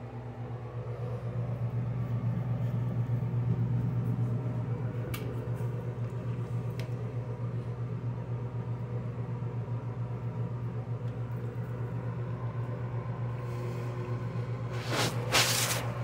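A steady low hum in a small bathroom, with a couple of faint clicks and a short rush of noise near the end.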